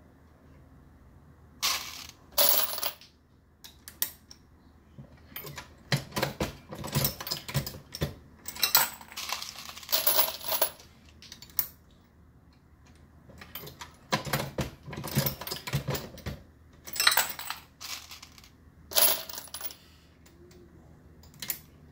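Brass .223 cases and copper-jacketed bullets clinking and clicking as they are handled and set into a Dillon RL550B progressive reloading press while it is cycled. The clinks come in clusters a few seconds apart, with quiet gaps between.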